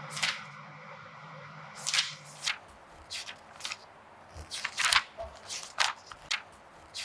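A series of short, sharp scuffs and rustles at uneven spacing, roughly one or two a second, over a faint low hum that stops about two and a half seconds in.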